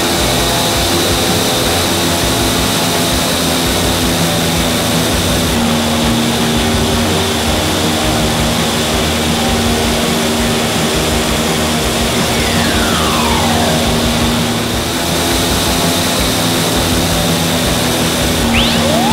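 Vertical wind tunnel's fans driving a loud, steady rush of air up through the flight chamber, with a steady hum under it. A falling whistle-like glide comes about two-thirds of the way through, and a short rising one near the end.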